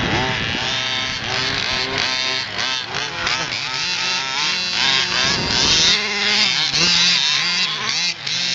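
Several HPI Baja 1/5-scale RC buggies' small two-stroke petrol engines revving up and down, overlapping, with pitch rising and falling as the throttles open and close.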